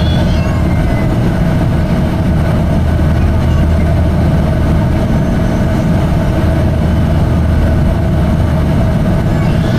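Airliner cabin noise: a steady, loud drone of the jet engines and airflow, with a constant hum running through it.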